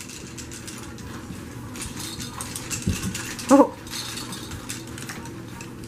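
A jingling puppy toy rattling and clicking faintly as French Bulldog puppies tug and chew on it, with a soft thump about three seconds in.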